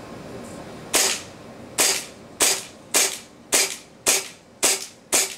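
WE 1911 gas blowback airsoft pistol firing on green gas: eight sharp shots, each with the slide's blowback clack, starting about a second in and coming about every half second.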